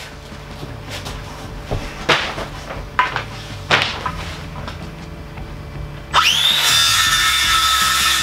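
A few sharp knocks of wooden floorboards being handled, then about six seconds in a handheld circular saw spins up with a quickly rising whine and runs on at a steady high pitch.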